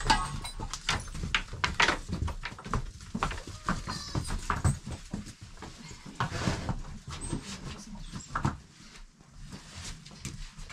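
Goats and kids in a pen: irregular knocks and rustling, busiest in the first half, with a few short bleats.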